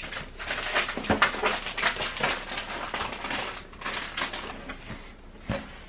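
Rustling and crinkling of packaging as hands rummage through a cardboard box, with scattered short crackles and knocks that ease off near the end.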